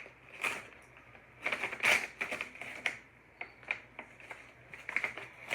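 A bag rustling and crinkling in irregular bursts as a cat claws and tears at it.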